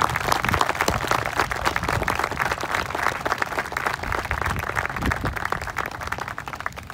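Seated audience applauding: many hands clapping in a dense, even patter that tapers off near the end.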